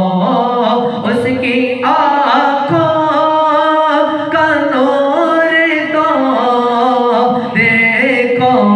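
A man singing an Urdu naat, drawing out long, wavering melodic notes.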